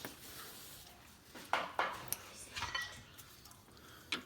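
Metal hand tools and parts clinking and knocking together: a handful of separate sharp metallic clicks, the clearest about a second and a half in.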